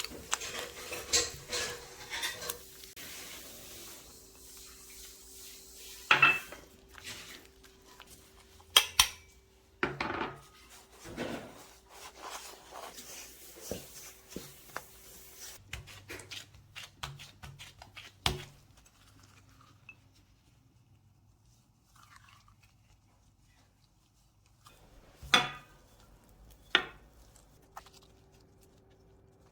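Kitchen utensils and bowls clinking, tapping and scraping during baking preparation: many sharp knocks in the first half, the loudest about six, nine and eighteen seconds in. After that it goes mostly quiet except for two knocks near the end.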